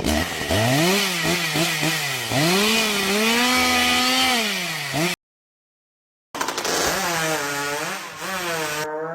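Chainsaw revving up and down over and over, its pitch rising and falling. It cuts off abruptly about five seconds in, and after a second of silence another chainsaw clip starts, revving in short repeated surges.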